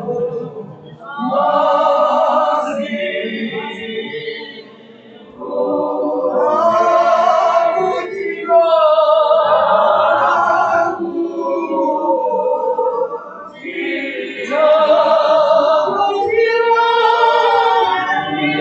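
A group of voices singing a church hymn together in long held phrases, with brief breaks about five and thirteen seconds in.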